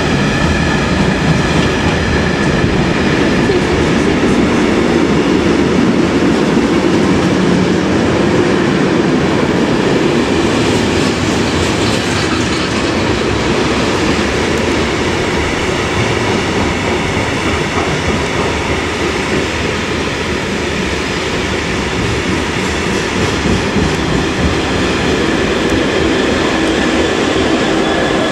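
Freight train of open box wagons running through the station at speed: a steady loud rumble with the clatter of wagon wheels over the rails.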